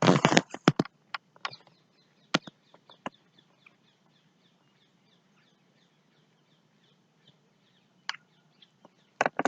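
A bird calling faintly in a quick run of short, high, falling chirps, about three a second. A few sharp clicks sound in the first three seconds and once near the end.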